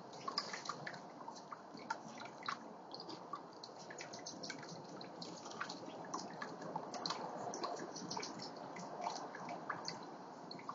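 Water in a small backyard fountain splashing and trickling steadily, with many quick drips and splashes falling at an irregular rate.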